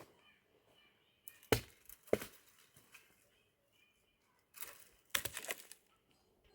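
Dry wood cracking and splintering: two sharp cracks, then a burst of crackling near the end, typical of firewood being broken up.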